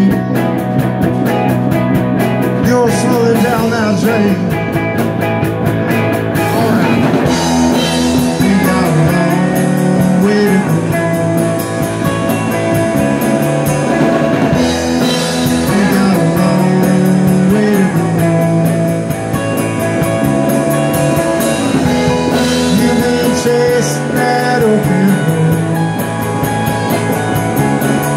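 Live rock band playing: electric guitars, electric bass and drum kit, with some singing.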